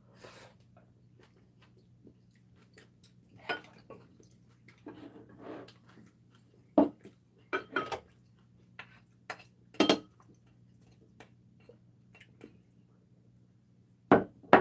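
Chopsticks and a spoon clinking and scraping against ceramic plates and bowls, with a few sharper knocks of dishes being handled and set down, about 7, 10 and 14 seconds in.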